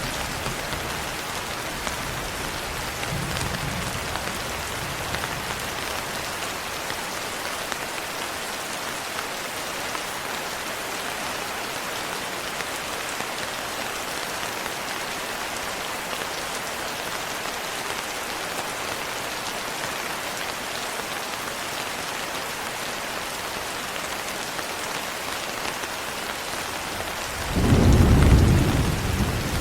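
Steady rain falling, with a faint low rumble of thunder a few seconds in and a louder roll of thunder starting near the end.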